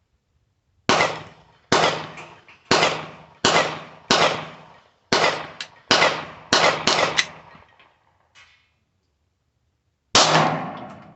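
Handgun shots: a string of about nine sharp shots at irregular intervals of well under a second, each with a ringing tail, then one more shot near the end.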